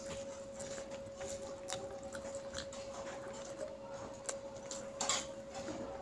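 Fingers mixing and squeezing wet curry rice on a plate: soft sticky squishes and clicks, with mouth-smacking chewing, and one louder smack about five seconds in. A steady hum sits underneath.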